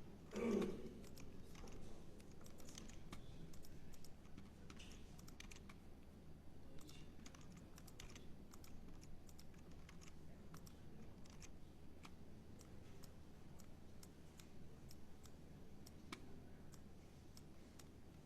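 Computer keyboard typing and clicks, scattered and irregular, while a program is entered on a PC. A brief voice sound about half a second in is the loudest moment.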